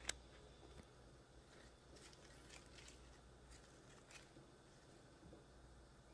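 Near silence: quiet room tone, with one sharp click just after the start and a few faint soft ticks later on.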